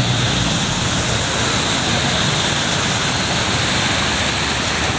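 Steady rushing noise of heavy rain and water in a flooded street, with a low vehicle rumble underneath that is strongest in the first half second.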